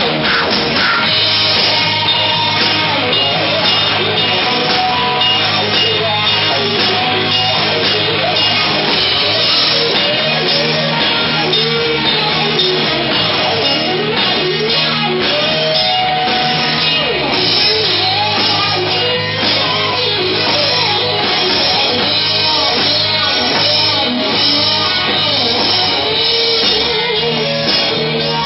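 A rock band playing live: electric guitar, bass guitar and drums, with a sung vocal over them.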